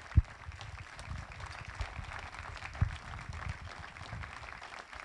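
Light, scattered applause from a small crowd, with two short low thumps, one just after the start and one near three seconds in.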